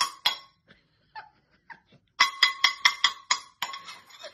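Metal kitchen knife blade struck repeatedly, each sharp clink ringing at the same pitch. Two loud clinks come at the start, then a few faint taps, then a quick run of about seven clinks from about two seconds in.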